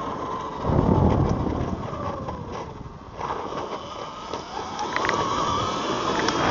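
Eride Pro SS 3.0 electric dirt bike's motor whining while riding. Its pitch falls as it slows and rises again about five seconds in. A loud rumbling buffet comes about a second in, over steady noise.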